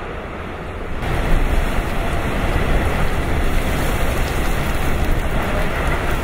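Super typhoon winds blowing hard and gusting, a dense roar buffeting the microphone; the roar grows louder about a second in.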